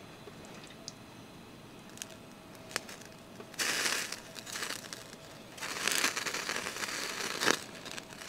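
Skewered gar fillets sizzling and crackling on the mesh grate over a portable gas burner's flame, in two spells: a short one about three and a half seconds in and a longer one from about five and a half seconds, with a few light clicks before.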